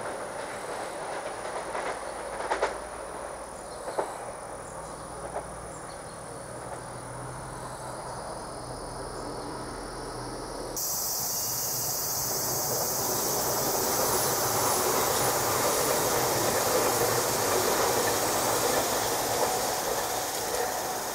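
JR Kyushu limited-express electric trains on the rails. First, a 787 series train runs away from the listener with a few sharp clacks of wheels over rail joints. After a sudden change about 11 s in, the running noise of an approaching 885 series 'White Kamome' grows louder.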